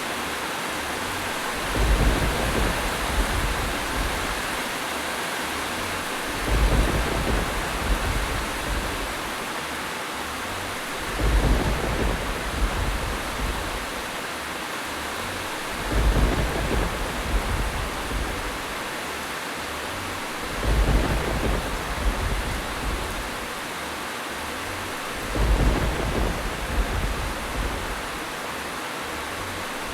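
Steady heavy rain hissing, with a low rumble of thunder swelling at regular intervals about every five seconds, six times in all.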